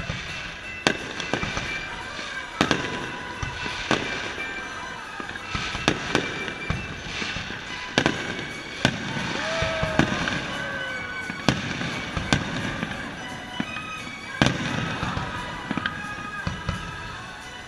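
Fireworks display: aerial shells bursting in a quick, irregular string of sharp bangs, with a short whistle about ten seconds in.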